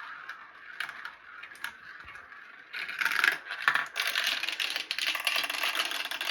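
Marbles rolling and clattering down a marble run, a dense patter of small clicks and rattles that grows busier and louder from about three seconds in.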